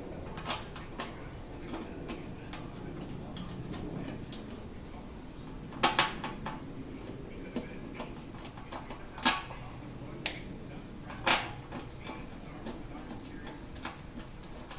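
Small steel bolts and tools clinking against metal as oil pan bolts are handled and started by hand into the pan rail, with a scatter of light taps and a few sharper clinks in the second half.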